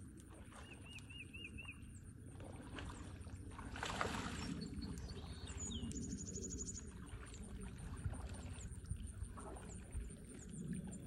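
Water lapping and sloshing around deer wading in a creek pool, with birds calling: four quick repeated notes about a second in and a fast high trill with chirps about six seconds in. A louder rush of noise comes about four seconds in.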